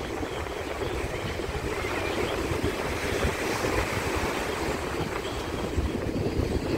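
Sea surf breaking steadily on a sandy beach, with wind buffeting the microphone in a low rumble.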